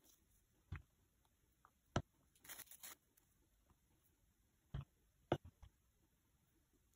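Quiet handling of soft modelling clay on a cutting mat: a handful of light taps and knocks as fingers press the clay pieces and set things down, with a brief rustling scrape about halfway through.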